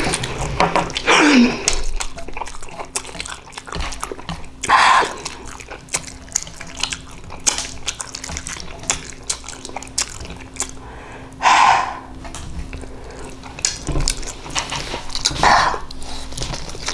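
Wooden chopsticks clicking and wet ramen noodles squishing as they are twirled and lifted, with a few short louder wet sounds, the last one a slurp as a mouthful of noodles is eaten near the end.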